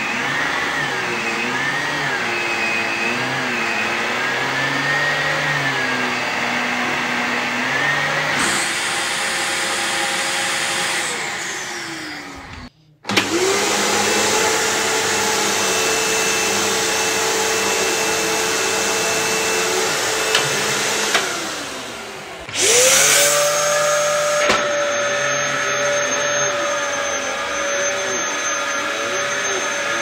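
An electric motor running with a steady hum and a wavering pitched tone under it. It winds down and cuts out about 11 seconds in, spins back up, winds down again about 21 seconds in and restarts a second later, settling on a higher steady whine.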